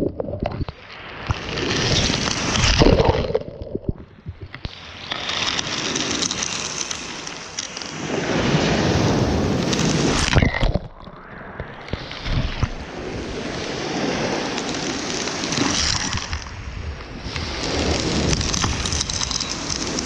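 Sea surf washing over and around a camera at the water's edge: repeated surges of rushing, splashing water, each swelling for a few seconds and then falling back, with a sudden drop about ten seconds in.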